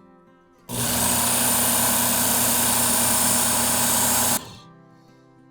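Work Sharp Ken Onion Edition belt sharpener running with its X22 medium abrasive belt while a knife edge is drawn through it in a single pass. The motor and belt noise starts abruptly about a second in, holds steady for nearly four seconds, and cuts off suddenly.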